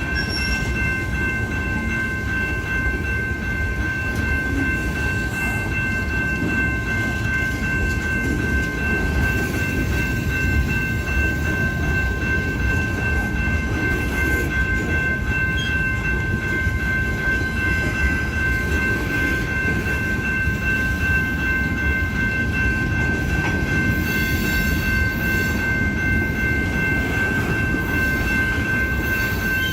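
Union Pacific freight train running, a steady loud rumble with a constant high whine held over it.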